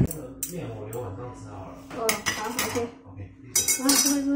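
Kitchenware clinking: metal cutlery and dishes knocking together in several short clusters, loudest near the end, over a steady low hum.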